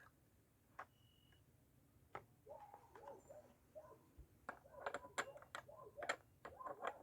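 Light clicks and clinks of hand tools and small chainsaw parts being handled, scattered at first and coming thick and fast from about halfway through.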